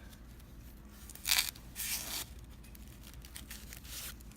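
Packaging being handled, crinkling in two short rustles about a second and a half and two seconds in, with fainter rustles near the end.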